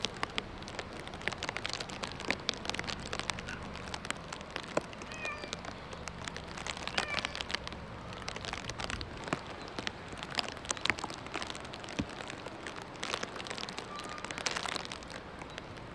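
Rain falling on wet ground and water, a steady hiss with many separate drop ticks, with a few short chirps now and then.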